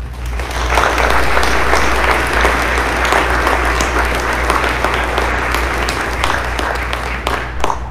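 Small seated audience applauding, a steady patter of many hands clapping that thins to a few last separate claps near the end.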